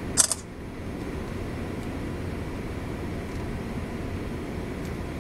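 Steady low rumble of a Great Lakes freighter's machinery heard from inside the ship's bridge, with a short sharp hiss a fraction of a second in.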